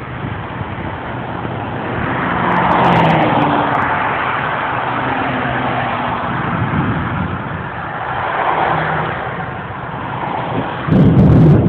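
Heavy rain coming down on a moving car, a steady rushing noise over a low engine hum that swells twice and eases. A louder low rumble starts near the end.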